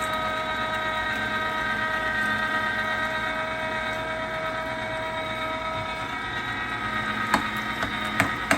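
LEM #8 half-horsepower electric meat grinder running and grinding pork, its motor giving a steady whine. A few sharp knocks come near the end.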